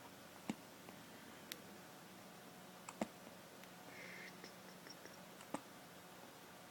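Hiccups: three sharp, short hiccups about two and a half seconds apart, with a fainter one between the first two.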